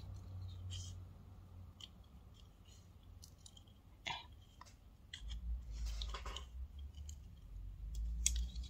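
Small scissors snipping thin clear plastic, trimming the excess from a miniature moulded cup: irregular sharp snips a second or so apart, with a quick run of them about six seconds in.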